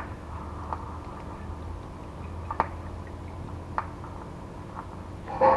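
Cooking oil trickling from a plastic bottle into a hot frying pan, with a few scattered sharp ticks over a steady low hum.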